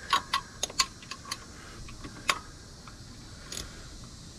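Ratchet wrench clicking as the bottom thermostat housing bolt on a Hemi engine is turned: a quick run of clicks in the first second and a half, then single clicks about two and three and a half seconds in. The bolt's threads feel a little stripped to the mechanic.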